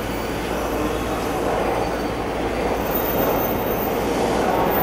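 Electric passenger train running along a station platform, a steady rail rumble that grows slightly louder.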